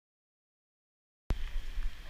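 Dead silence that cuts off abruptly about a second and a quarter in to outdoor street ambience: a low rumble and hiss on the microphone.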